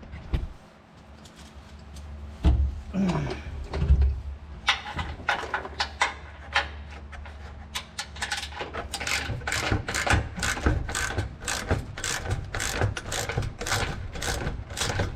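Hand ratchet clicking in a steady rhythm, about three clicks a second from about five seconds in, as the underbody cover bolts are backed out, after a few loose knocks. A steady low hum runs underneath.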